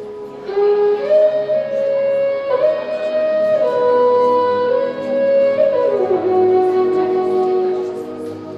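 Instrumental music: a slow tune of long held notes, several sounding together, each changing pitch every second or so.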